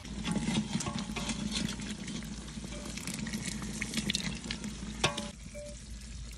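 Metal ladle stirring rice boiling in an aluminium pot, clinking and scraping against the pot over bubbling water and a low steady rumble, with one sharper clink about five seconds in.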